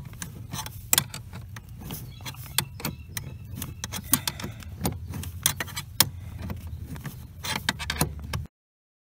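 Hand wrenches clicking and clinking against metal as bolts on the clutch master cylinder are tightened, in quick irregular clicks over a low steady hum. The sound cuts off abruptly near the end.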